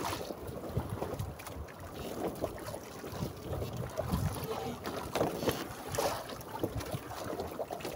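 Sea water slapping and sloshing against the hull of a small fishing bangka as it rocks in the swell, in irregular low thuds and splashes, with wind buffeting the microphone.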